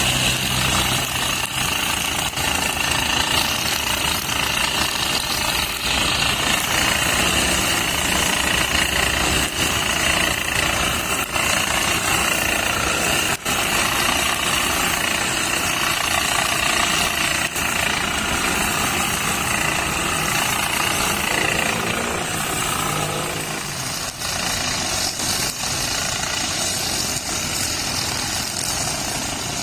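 Brush cutter with nylon trimmer line running steadily at speed, its engine note shifting about 23 seconds in.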